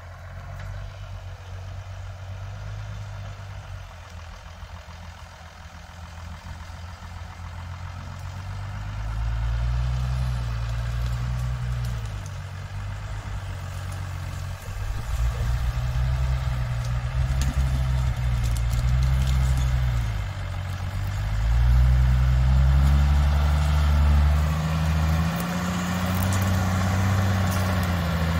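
Shaktiman truck's engine pulling a full load of firewood along a rough dirt track, its pitch rising and falling as it works. It grows louder as the truck approaches, from about a third of the way in.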